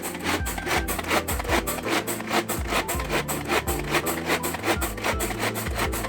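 Kitchen knife cutting food on a wooden cutting board in quick, even strokes, about four to five a second.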